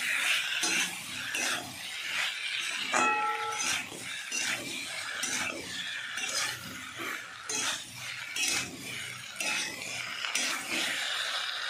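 A spatula stirring and scraping vegetables around a metal wok: a run of uneven scrapes with light clinks against the pan. A short squeak sounds about three seconds in.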